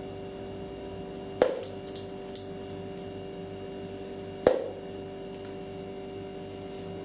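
Magnetic darts striking a magnetic dartboard: two sharp knocks, about three seconds apart, over a steady hum.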